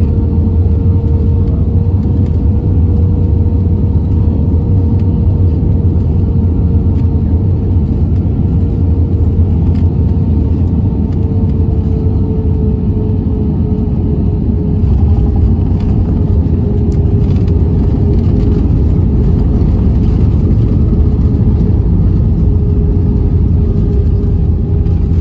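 Cabin noise of an Airbus A320-232 with IAE V2500 engines on final approach and touchdown, heard from a window seat over the wing: a loud, steady rumble with a steady whine that drifts slightly lower. About halfway through, the sound gains more hiss and some faint knocks as the wheels meet the runway and the ground spoilers come up.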